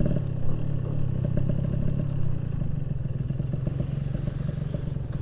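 Yamaha RX-King 135cc single-cylinder two-stroke motorcycle engine running on the move, its note steady and then easing gradually lower as it slows.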